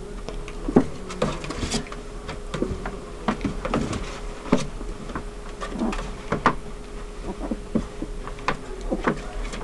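Litter of 17-day-old Dutch Shepherd / German Shepherd puppies making many short, irregular squeaks and whimpers as they squirm, over a faint steady hum.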